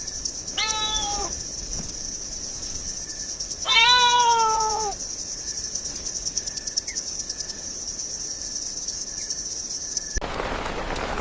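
A cat meowing twice: a short meow about half a second in, then a louder, longer meow about four seconds in, each sliding slightly down in pitch.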